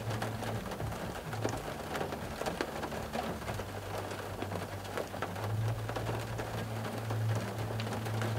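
Rain falling on a car, heard from inside the cabin: a steady patter with many separate drops ticking against the roof and glass, over a low steady hum.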